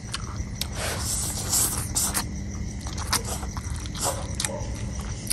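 Two people eating instant noodles with chopsticks close to the microphone: slurping and chewing, with scattered short wet smacks and clicks, over a low steady hum.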